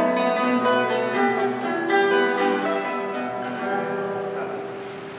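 Two classical guitars playing together, plucked notes and chords; after about three seconds fewer new notes are struck and the last held notes ring and fade away.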